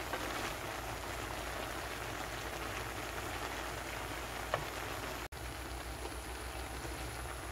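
Vegetables sizzling in hot oil in a frying pan as they are stir-fried, a steady crackling hiss. There is one sharp click about four and a half seconds in, and the sound breaks off for an instant just past five seconds.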